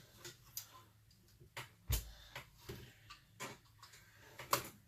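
Light, irregular clicks and taps of hand tools and small metal parts being handled during chainsaw reassembly, with one heavier knock about two seconds in.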